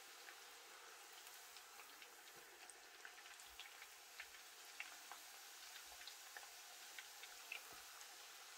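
Plantain strips deep-frying in oil: a faint steady sizzle with scattered small crackles and pops.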